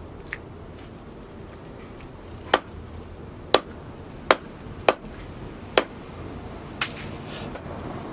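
Knife chopping through chicken onto a cutting board: six sharp chops about a second apart.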